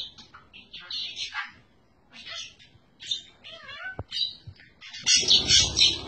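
Budgerigar chattering in short, high warbling bursts, with a single sharp click about four seconds in. Near the end comes a louder burst with a low flutter beneath the chatter.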